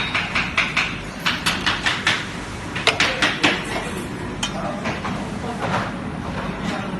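Battery laser welding machine at work: sharp metallic clicks in quick runs of about four or five a second, over a steady low machine hum.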